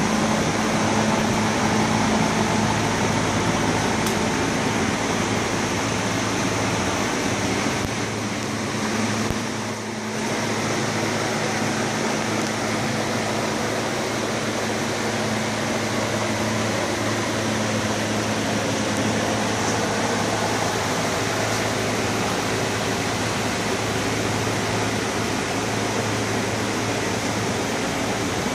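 Steady hum and hiss of a running fan-type machine, dipping briefly about eight to ten seconds in.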